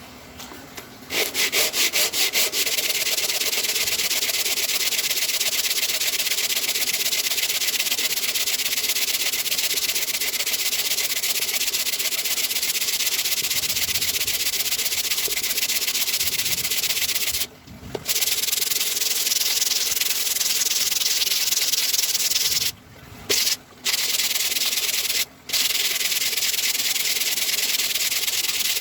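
Coarse 60-grit sandpaper on a plywood sanding block rubbing hard against sonokeling (Indonesian rosewood). It starts about a second in with quick back-and-forth strokes, then runs on as a steady hiss, stopping briefly a few times.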